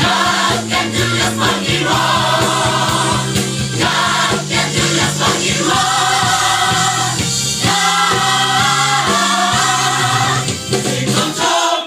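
Gospel choir singing held notes in several voices over a steady beat, cutting off suddenly at the end.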